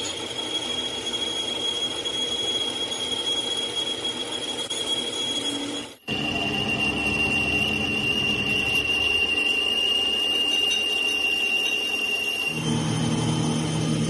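Metal lathe machining the end of a steel truck gearbox main shaft, the tool bit cutting into the spinning shaft with a steady high-pitched squeal. The sound breaks off sharply about six seconds in and returns with the squeal a little lower; near the end the squeal changes and a low machine hum comes up.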